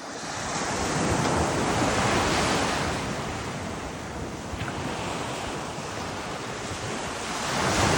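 Wind rushing over open water and buffeting the microphone, with the wash of waves. It swells during the first second and again near the end.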